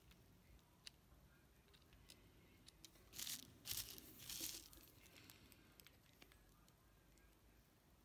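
Faint handling noises: small clicks and scrapes of fingers and a thin driver working a small metal driveshaft universal joint on an RC truck's output shaft, with a short run of louder scraping rustles about three to four and a half seconds in.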